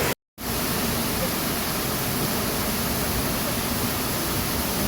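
Steady rushing noise of a waterfall's falling water, cut off by a brief silent gap near the start.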